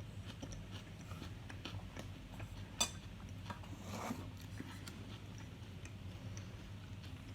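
Quiet eating of a salad with a fork: faint scattered clicks and taps, one sharper click a little under three seconds in, and a short soft noise about four seconds in.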